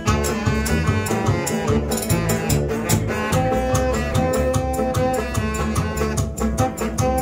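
Small acoustic chanson band playing an instrumental passage: saxophone, acoustic guitars and a steady beat, with long held melody notes from about three seconds in.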